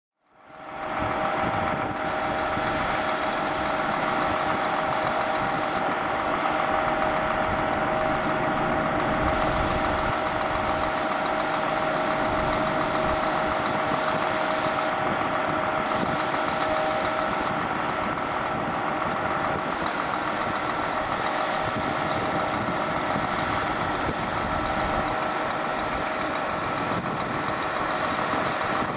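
Crane lorry's diesel engine running steadily to power its knuckle-boom crane, with a steady whine of several held tones over the engine noise. One of the tones drops away a little past halfway.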